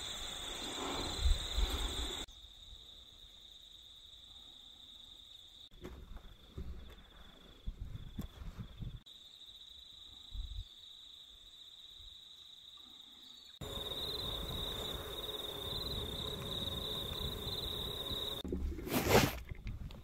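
Insects buzzing steadily at a single high pitch. The surrounding background noise shifts abruptly several times, and a short burst of noise comes near the end.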